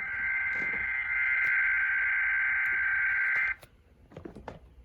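NOAA Weather Radio SAME header data tones: a buzzy two-tone digital warble near 1.5 and 2 kHz, from several transmitters' headers overlapping, running about three and a half seconds and cutting off suddenly. These data bursts open the weekly test broadcast.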